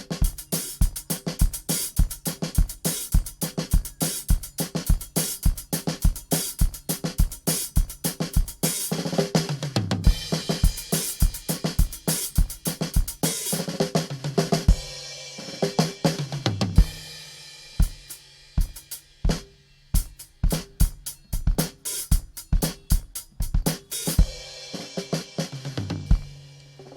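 Drum kit played in a stage sound check: a steady beat on bass drum, snare and hi-hat with cymbal crashes, broken by tom fills that run down in pitch, the clearest about a third and two-thirds of the way through. The second half is lighter, with the strokes more spread out.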